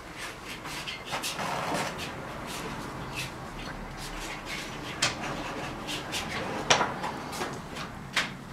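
Scattered sharp clicks and knocks with short scrapes, from painting tools being worked against canvas and palette at an easel. The loudest clicks come about halfway through, just before the end and once near the end.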